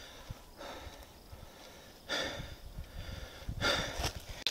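A man breathing heavily close to a body-worn camera's microphone: three loud breaths about a second and a half apart, the last one loudest.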